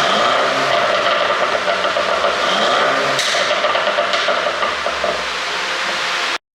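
Mercedes-Benz E300 (W213) engine and exhaust being revved, the revs rising and falling twice, with sharp exhaust pops about three and four seconds in from an ECU pop-and-bang tune. The sound cuts off abruptly near the end.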